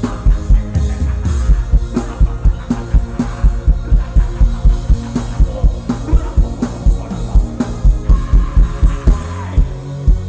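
Worship band playing without vocals: a steady drum-kit beat of about three hits a second over bass and guitar.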